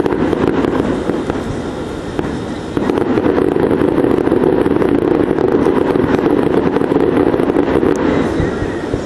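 Fireworks grand finale: a dense, continuous barrage of overlapping bangs and crackling. It eases a little about two seconds in and builds again from about three seconds.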